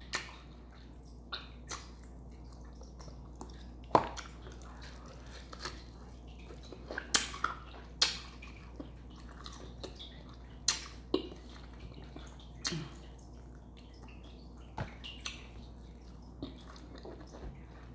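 Wet eating sounds of a person eating a seafood boil: scattered sharp clicks and smacks of mouth and fingers, a second or two apart, the loudest about four seconds in and again about seven and eight seconds in.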